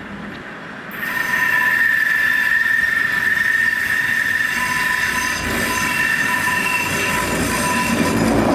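Steel wheels of vintage HTM museum tram 265 squealing on a curve in the track: a steady high-pitched squeal that starts abruptly about a second in and holds, with the low rumble of the wheels on the rails growing near the end as the tram passes close.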